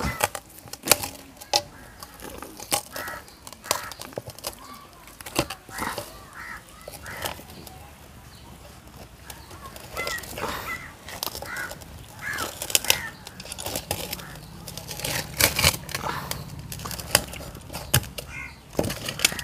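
Scattered sharp clicks and soft handling noises of a chicken carcass being cut and skinned by hand, with short high calls now and then.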